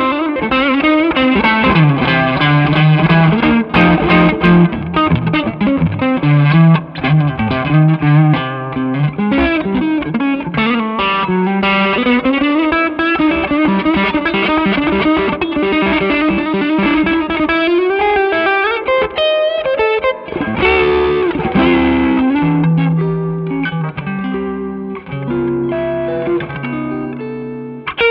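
PRS Silver Sky electric guitar played through a SineWave guitar amplifier: a continuous demo passage of single notes and chords, with string bends gliding up in pitch around the middle.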